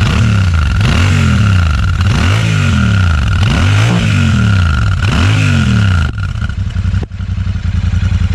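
Royal Enfield Super Meteor 650's 648cc parallel-twin engine, on its stock dual exhausts, blipped repeatedly while standing in neutral. It gives about five or six quick revs that rise and fall, then settles back to a steady idle about six seconds in. The sound is smooth.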